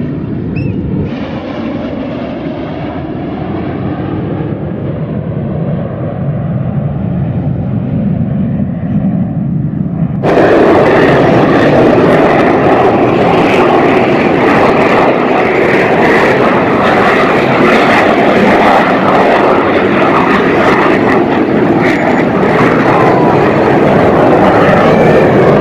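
Jet aircraft flying over, a steady low rumble that slowly grows louder. About ten seconds in it gives way suddenly to a much louder, fuller jet noise that holds steady.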